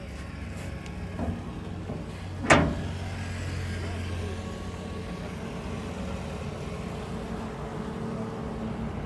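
Excavator engine running steadily, with a small knock a little over a second in and a loud, sharp metallic clank about two and a half seconds in.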